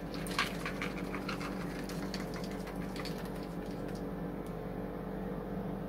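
Chopped pecans sprinkled from a plastic measuring cup onto roll pieces soaked in custard in a glass baking dish: light, scattered pattering and ticks that thin out after about four seconds, over a steady low hum.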